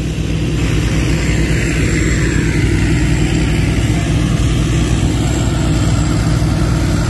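Rice combine harvester's engine and threshing machinery running steadily under load.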